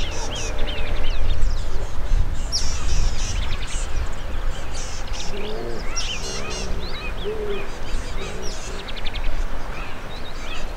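Wild birds calling throughout, with many short chirps and quick rising and falling whistles, and a few lower-pitched calls about five to eight seconds in. A steady low rumble runs underneath.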